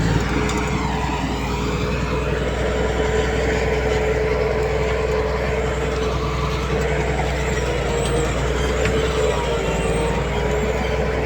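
Heavy diesel earthmoving machinery running steadily, a deep engine rumble with a constant tone over it.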